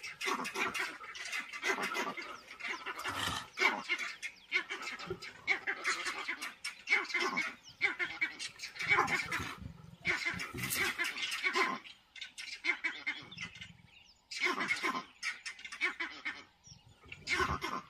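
Porcupines under attack by a leopard: irregular bursts of rattling, rasping noise and short harsh calls, the sound of raised quills being shaken as a warning, with brief lulls.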